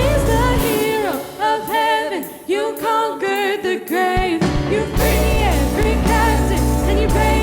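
Live church worship band playing, with a singer's wordless sung line bending in pitch over it. The bass and drums drop out for about three seconds, leaving mostly voice, then the full band comes back in.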